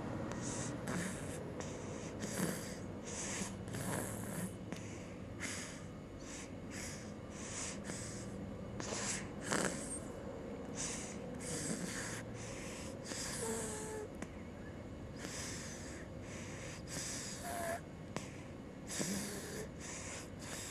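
Snoring in quick, regular breaths, about three every two seconds, each breath a short hiss.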